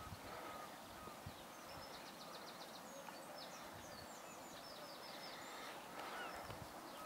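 Faint birdsong outdoors: a small bird's quick high chirps and trills through the middle, with a few faint lower calls in the first second.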